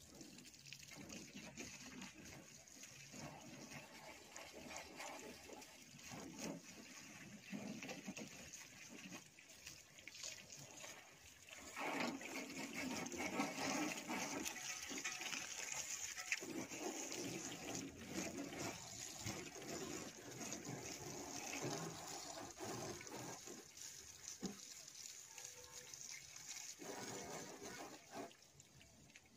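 Garden hose spraying water onto a car's bodywork and windows, with splashing. It gets louder about twelve seconds in and eases off just before the end.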